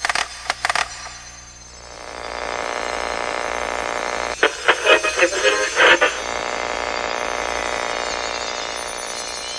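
A few clicks as a dial is turned, then radio static hiss between stations. About four and a half seconds in, a snatch of a voice breaks through the static for about a second and a half before the hiss returns.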